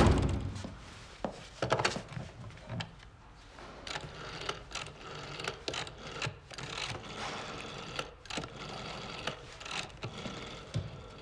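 A knock, then clicking and a whirring mechanical rubbing that starts and stops several times, typical of a rotary telephone dial being turned and running back.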